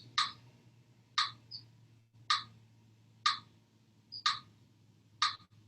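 Steady ticking, one short sharp tick about every second, over a faint low hum.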